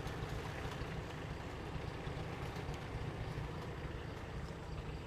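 An engine idling, a steady low rumble.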